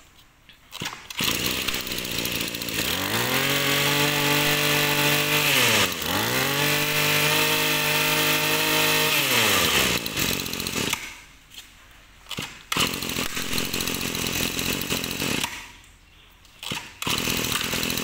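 Hitachi 23cc two-stroke brush cutter engine starting, idling, then revved up to high speed twice, each time sinking back to idle. It then stops and is started again twice.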